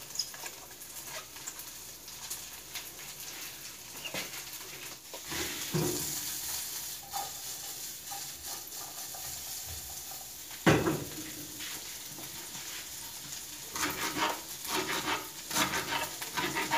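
Bacon frying in its own fat in a small frying pan, a steady sizzle, with a few scattered knocks and one loud knock about two thirds through. Near the end, a knife chops green onions on a plastic cutting board in quick taps.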